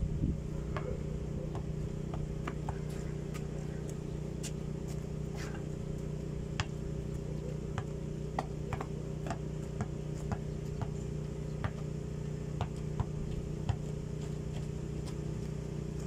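A basketball being dribbled and shot on a dirt court: scattered irregular taps and knocks, a few louder, over a steady low mechanical hum.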